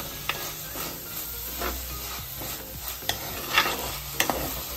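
A metal spoon stirs and scrapes chopped onion, tomato and green chilli frying in oil in a dark clay pot, with a steady sizzle and several sharp clicks of the spoon against the pot. This is the onion-tomato base being sautéed for a fish curry.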